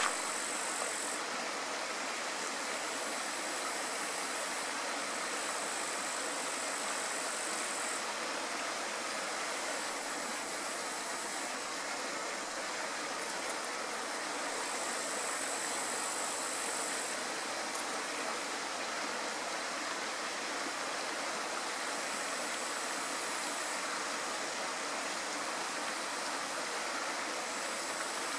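Steady rushing noise like running water, with a thin high buzz that comes and goes in spells of a few seconds.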